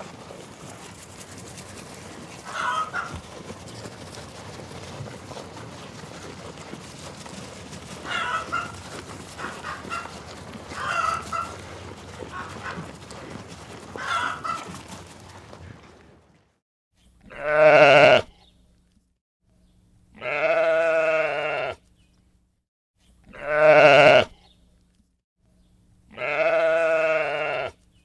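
Steady farmyard background with a few short hen clucks, then the background drops away abruptly and a sheep bleats four times, each bleat loud, wavering and a second or so long, about three seconds apart.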